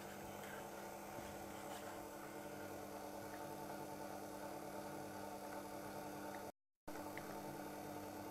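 SMEG stand mixer's motor running with a steady hum as its beater works cake batter, cutting out to silence briefly about six and a half seconds in.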